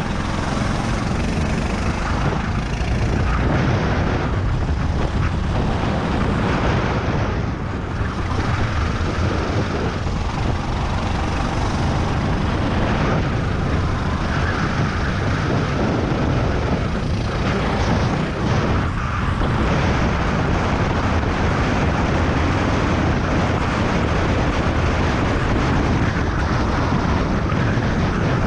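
Racing go-kart engine running hard at race pace, heard onboard, with the sound dipping briefly a couple of times.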